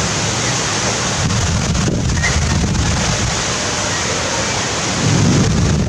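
Heavy rain pouring in a strong, gusting wind, with gusts buffeting the microphone in low rumbles that are strongest near the end.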